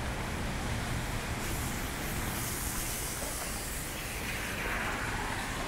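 Heavy rain falling in a steady hiss. A brighter, higher hiss swells about a second and a half in and fades again near the end.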